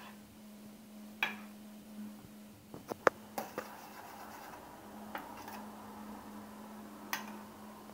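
Metal spoon stirring thick apricot jam in an enamel pot, scraping along the inside and clinking sharply against the pot several times, most densely about three seconds in, over a low steady hum.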